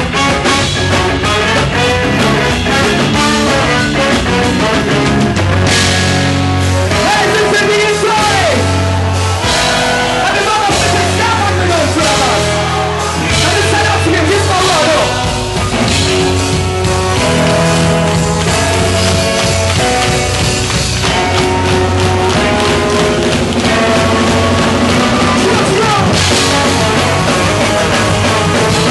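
Loud live ska-punk band playing.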